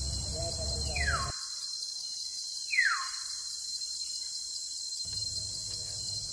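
Steady high buzzing of jungle insects, with birds warbling over it at first. Two quick falling whistles come about one and three seconds in, the second the loudest.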